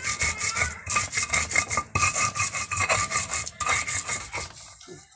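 Hands rubbing and kneading a coarse ground-corn mixture in a bowl: quick scratchy, gritty strokes, several a second, which die away shortly before the end.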